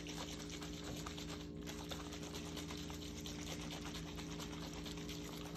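Steady low hum of a few even tones, with a faint soft haze of handling noise over it.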